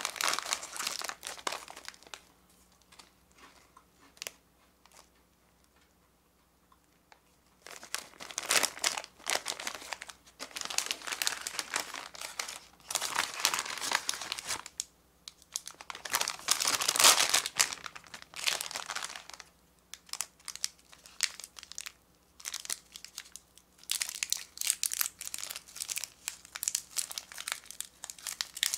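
Plastic snack and candy wrappers crinkling as they are handled and unwrapped, in three spells with quiet pauses of a few seconds between; near the end a small candy wrapper is being unwrapped.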